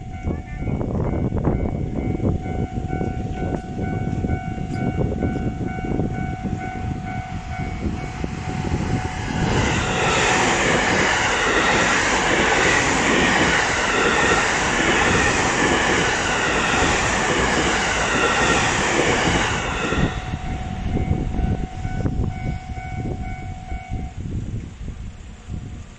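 Japanese level-crossing warning bell ringing on and on, with a train rumbling over the rails. About ten seconds in, an electric train passes at speed, its loud rushing wheel-on-rail noise lasting about ten seconds. The bell stops about two seconds before the end, after the train has gone.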